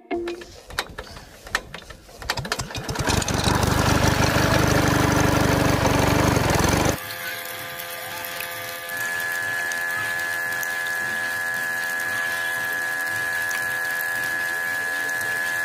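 Small electric motor of a miniature model water pump set running: a few irregular clicks as it starts, loud running for a few seconds that cuts off suddenly, then a steady high whine as it pumps water through the hose.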